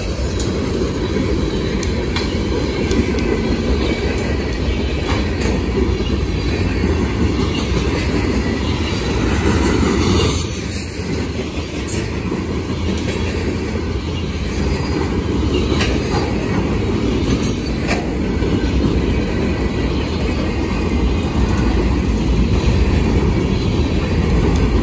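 Freight train's covered hopper cars rolling past close by: a steady rumble of steel wheels on rail, with scattered sharp clacks from the wheels.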